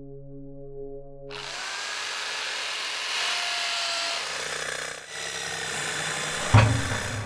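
Layered sound effects: a held low chord gives way to a loud mechanical whirring and grinding noise, which changes about five seconds in, and then a single loud thump near the end.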